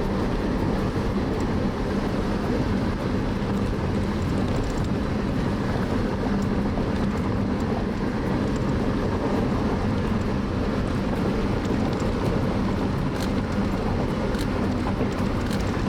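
Steady road and engine noise inside a moving car's cabin, a low rumble with a faint steady hum.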